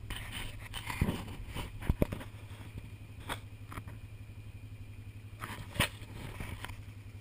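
Handling noise from the camera or its microphone: several sharp knocks and scrapes, the loudest near the end, over a low steady rumble.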